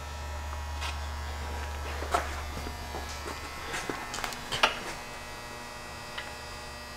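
A low, steady electrical hum, with a few faint clicks and taps; the hum drops away about two-thirds of the way through.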